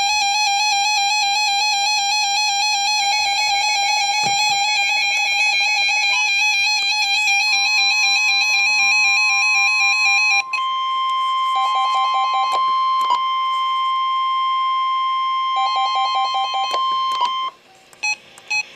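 A weather radio's alert alarm: a loud warbling tone for about ten seconds, then a steady single-pitch NOAA Weather Radio warning alert tone for about seven seconds, with short bursts of beeping over it, stopping suddenly near the end. It signals an incoming tornado warning broadcast.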